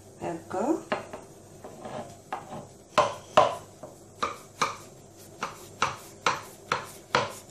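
Knife cutting down through rolled, butter-brushed baklava and knocking on the bottom of a glass baking dish, a sharp click with each cut, about two a second.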